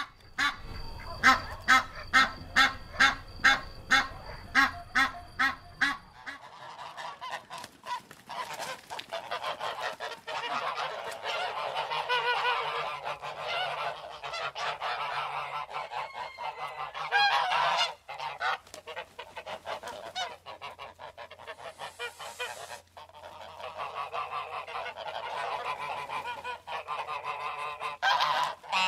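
A goose honking loudly in an even series, about two honks a second. About six seconds in, this changes abruptly to a flock of geese honking over one another, many calls overlapping.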